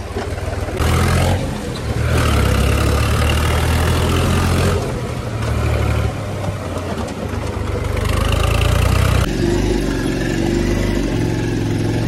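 Tractor diesel engine running under way, its note rising and falling as the throttle changes. About three-quarters of the way through, it gives way to a motorcycle engine running along a rough dirt track.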